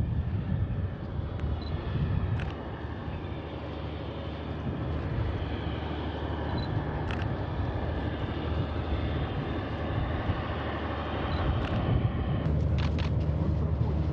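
Diesel locomotive pushing the Soyuz rocket's rail transporter: a steady low engine rumble, with a few sharp clicks near the end.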